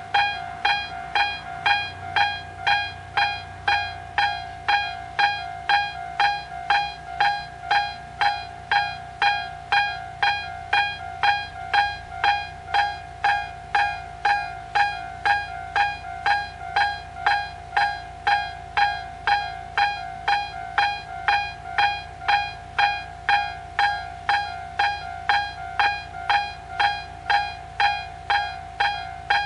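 Japanese railway level crossing alarm bell ringing steadily, about two strikes a second, each a bright ringing tone: the warning that a train is approaching.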